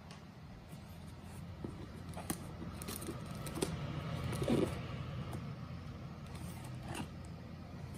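A hand handling a taped cardboard parcel: a few light taps and scrapes of fingers on the box and its shipping label, loudest about four and a half seconds in, over a steady low hum.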